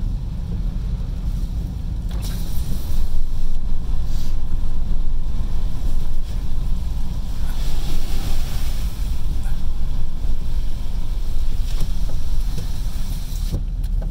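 Inside a car driving on a wet road: a steady low rumble of tyres and wind, with heavy rain pattering on the windscreen and roof, louder from about two seconds in, and the windscreen wipers sweeping.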